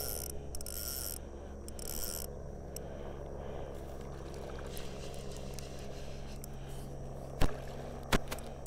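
Hooked smallmouth bass splashing at the surface twice in quick succession near the end, two short sharp splashes over a steady low hum.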